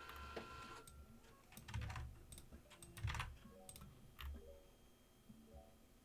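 Faint computer keyboard typing: scattered keystrokes in a few short runs, thinning out in the last couple of seconds.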